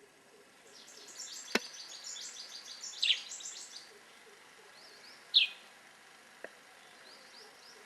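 Wild birds calling: a fast run of high chirps for about three seconds, and two short, loud, falling whistled calls about three and five seconds in. A sharp click sounds about one and a half seconds in, with a fainter one later.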